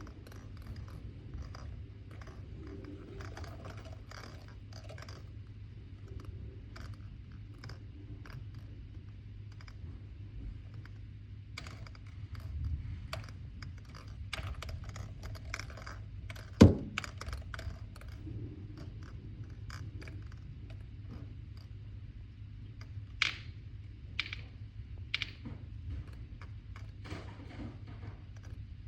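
Scattered light clicks and taps over a steady low hum, with one sharp knock about seventeen seconds in and a few stronger clicks a little later.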